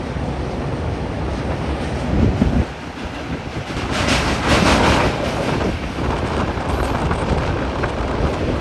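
Double-decker express train running across a steel truss rail bridge, heard from an open coach door: a steady rumble and clatter of the wheels on the bridge, swelling louder for a second or two about four seconds in.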